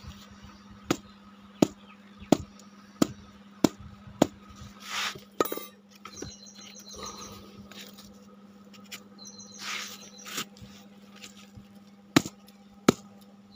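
Sharp knocks as lumps of burnt, dried cow-dung cake are broken apart, about one every two-thirds of a second at first, with crumbling and scraping in the middle and two more knocks near the end.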